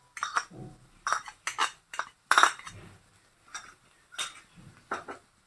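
A metal spoon scraping and clinking against a ceramic bowl as grated carrot is pushed out into a kadai: a string of short, sharp clinks and scrapes, the loudest about two and a half seconds in.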